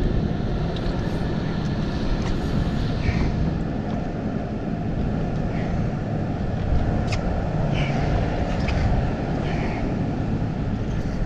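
Boat motor running steadily, a loud low rumble, with a few faint short chirps over it.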